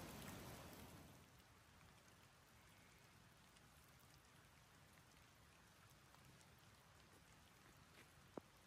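Faint steady rain with scattered drips, dropping quieter about a second in; a single sharp click near the end.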